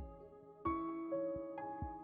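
Slow piano background music: single notes struck every half second or so and left to ring, with low bass notes under some of them.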